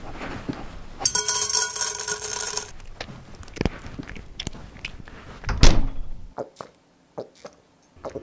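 Dry cat food poured from a bag into a bowl: scattered clicks and knocks of falling kibble, with the loudest clatter a little past the middle.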